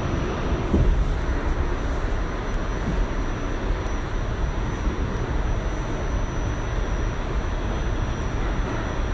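Steady rumble of an R46 subway car running along the track, heard from inside the car, with a faint high steady whine on top.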